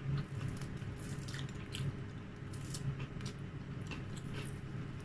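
Close-up mouth sounds of someone eating fried dried milkfish, working on the fish head: wet chewing, sucking and lip-smacking, many small clicks and squishes over a low steady hum.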